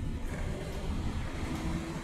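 City bus running, heard from inside the cabin: a steady low engine and road rumble.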